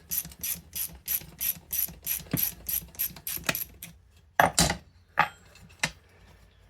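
Ratchet spanner being worked in quick strokes, clicking about three times a second, then stopping; a few separate louder clicks or knocks follow.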